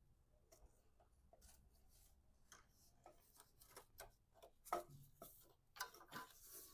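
Faint, irregular clicking of a ratcheting wrench working the radiator shroud bolts, with a few louder metal clinks near the end.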